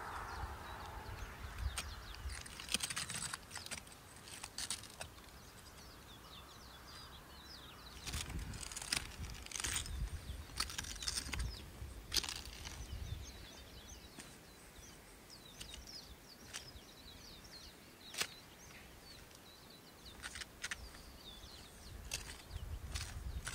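Irregular crunching knocks with a low rumble, heaviest in two clusters, in the first few seconds and again around the middle. Through the quieter second half, faint high bird chirps.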